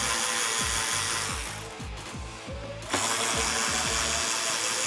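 Cordless power driver spinning a 7 mm socket on an extension, backing out the screws that hold the lower trim piece at the wheel-well corner. It runs in two bursts: the first stops about a second and a half in, the second starts about three seconds in.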